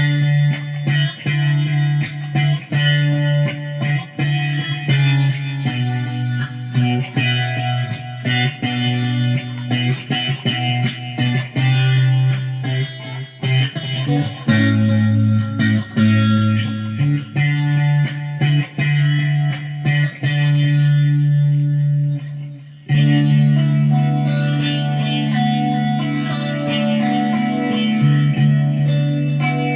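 Guitar played in D major through an echo effect, with sustained notes and many quickly repeating attacks. It cuts out briefly about 23 seconds in, then starts again.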